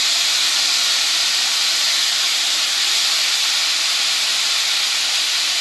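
Aluminium pressure cooker whistling: a loud, steady hiss of steam jetting out under its weight valve, the sign that the cooker has come up to pressure.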